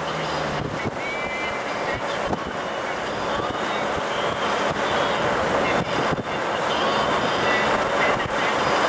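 Steady rush of engine, tyre and wind noise from a moving jeep, heard from on board.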